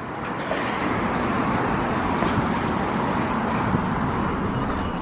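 Steady rushing background noise, even throughout, with no clear tone, rhythm or distinct impacts.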